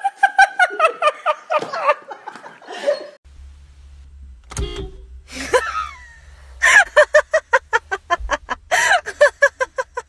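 Women laughing hard in quick, repeated bursts of 'ha-ha-ha', one laugh, a break about three seconds in, then a second laugh in the second half. A low steady hum, like an idling car heard from its cabin, runs under the second laugh.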